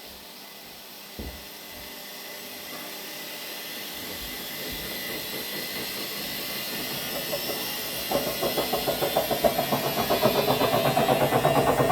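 Haier HW60-10636A washing machine running: a hiss builds steadily, then about eight seconds in a fast rhythmic pulsing sets in and grows louder. There is a short knock about a second in.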